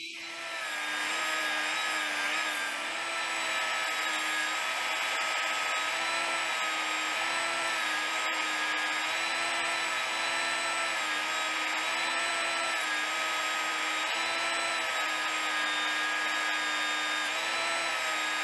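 Portable belt sander clamped upside down in a vise, running while the curved edge of a maple paddle is sanded on its belt. It makes a steady motor whine over a sanding hiss, and the pitch wavers slightly.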